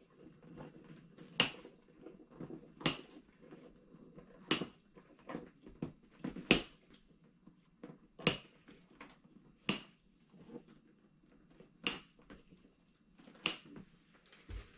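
Nylon zip-tie tails being snipped off with hand cutters: eight sharp snaps, about one every one and a half to two seconds, with faint clicks and handling noise between them.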